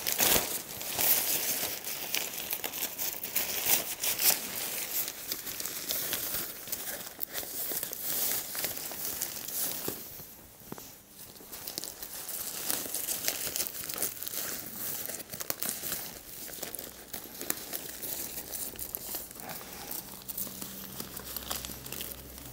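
Nylon fabric of a bed-tent air adapter rustling and crinkling as it is handled and pressed onto the tent, with Velcro strips ripping and catching now and then. The rustle is irregular and dips briefly about ten seconds in.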